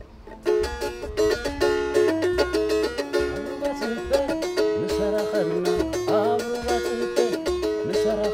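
Plucked lyre melody in the style of the Eritrean krar over a low, regularly pulsing bass beat, starting about half a second in.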